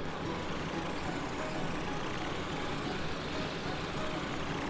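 Cartoon sound effect of motor vehicles driving: a steady engine rumble with road noise.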